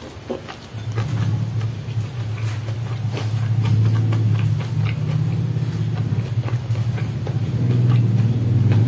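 A steady low engine hum comes in about a second in and holds, the loudest sound, like a motor vehicle running close by. Over it are soft chewing clicks and lip smacks from someone eating with their hands.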